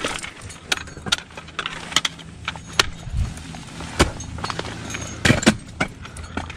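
Ice axe picks and crampon points striking hard ice in an irregular run of sharp knocks, with metal climbing hardware clinking between the strikes.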